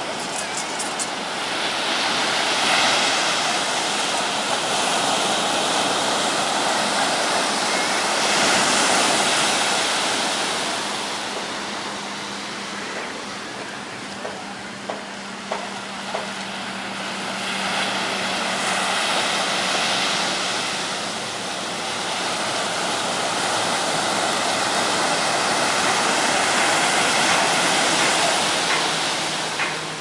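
Surf on a steep sandy beach: waves breaking and washing up the shore in a steady rush that swells and eases about three times. A faint steady low hum sounds through the middle.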